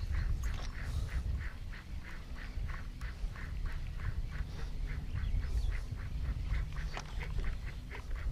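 Baitcasting fishing reels being cranked on a fast lure retrieve, a regular rasping pulse about three to four times a second, over a low rumble of wind on the microphone.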